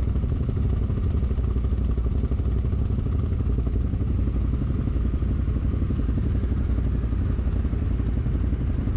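Can-Am Outlander XMR 1000 ATV's V-twin engine running steadily through its Yoshimura exhaust, a loud, even, low pulsing with no clear revving.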